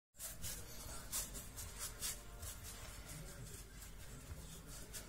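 Hands rolling a strand of bread dough back and forth on a floured tiled countertop: soft rubbing strokes a few times a second, fading after the first couple of seconds.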